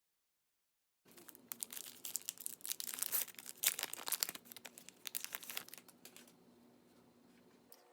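Foil wrapper of a baseball card pack being torn open and crinkled: a dense run of crackles and rips that starts about a second in and lasts about five seconds, then dies away to faint handling noise.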